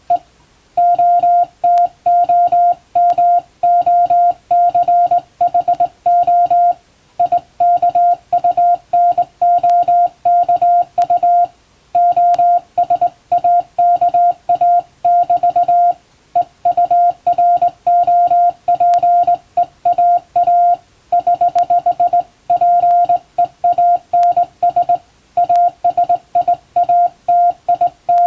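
Morse code hand-sent on a straight telegraph key: a steady mid-pitched beep keyed on and off in quick dots and dashes, with longer pauses between words every few seconds.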